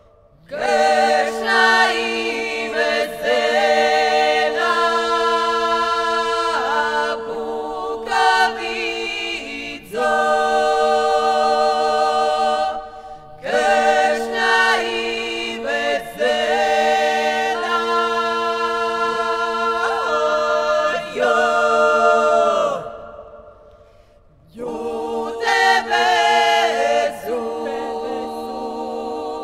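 Dalmatian klapa group singing a cappella without instruments: close-harmony chords held over a steady low drone note, in long phrases broken by short pauses about 13 and 23 seconds in.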